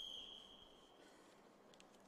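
A single long, high, steady tone, loudest at the outset and fading out about a second and a half in, over near silence.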